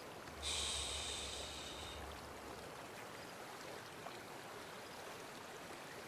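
A long breathy exhale about half a second in that fades over a second or so, over the steady low wash of a slow-running stream.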